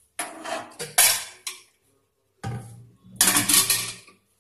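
Aluminium pressure cooker being lifted off a stainless-steel gas stove: metal knocking and scraping on the stovetop in several short bursts, the loudest near the end.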